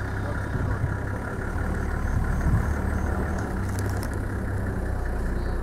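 Safari vehicle's engine running steadily just after being started.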